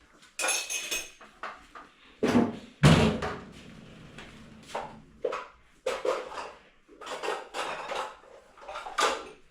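Kitchenware being handled: dishes, lids and containers knocking and clattering, with two heavy knocks about two to three seconds in followed by a short ring, then a string of lighter clinks.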